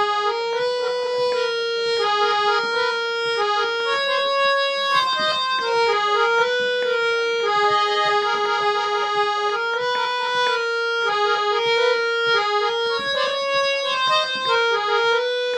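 Harmonium playing an instrumental melody between sung lines of a Hindi bhajan, its reedy notes stepping up and down in quick succession.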